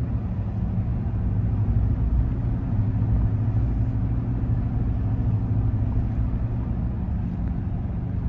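Steady low rumble of a moving vehicle heard from inside the cabin: engine hum and tyres on the paved road.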